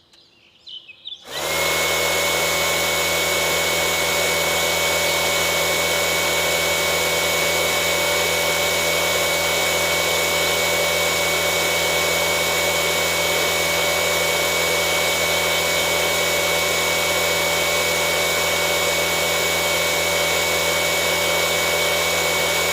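A small electric power tool switches on about a second and a half in, spins up, then runs steadily with a high whine over a hissing motor noise.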